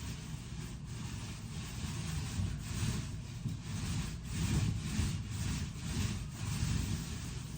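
Rhythmic back-and-forth rubbing strokes against a surface, about two a second, with a low rumble underneath.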